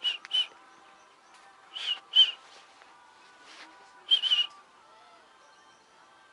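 Short, sharp high whistled notes in quick pairs, heard three times: at the start, about two seconds in, and about four seconds in.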